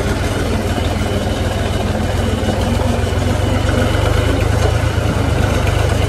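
New Holland tractor's diesel engine running steadily at low speed, heard up close from the driver's seat.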